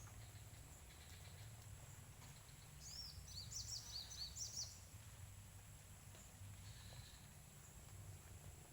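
A bird gives a quick run of short, high chirps about three seconds in, over a faint low rumble of outdoor background noise.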